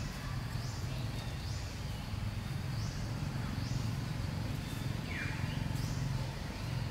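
Outdoor ambience: a steady low hum under a short high chirp that repeats roughly once a second, with one brief falling call about five seconds in.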